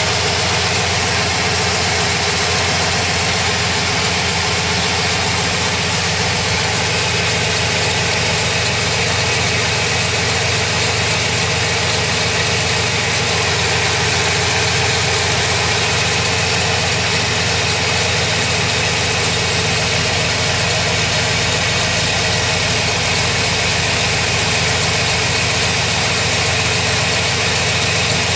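A 2006 GMC Sierra 1500's 4.3-litre V6 gas engine idling steadily, heard up close in the open engine bay.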